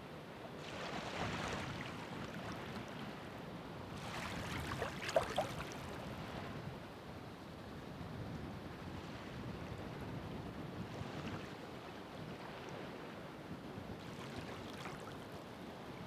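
Ocean surf washing ashore: a steady wash of water with waves surging in about a second in, strongest around five seconds, and again near eleven and fifteen seconds.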